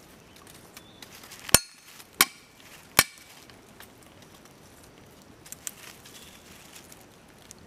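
Three sharp clicks with a short ringing after each, the first about a second and a half in and the others under a second apart, then a few fainter ticks.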